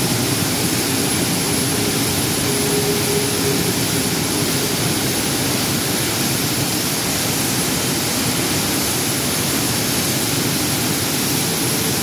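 Steady, loud din of a hot steel rolling mill and coiler running: even machinery noise with a faint held hum and no breaks.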